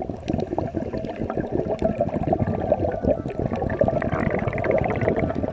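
Scuba divers' regulators letting out exhaled air bubbles, heard underwater as a continuous irregular crackling burble.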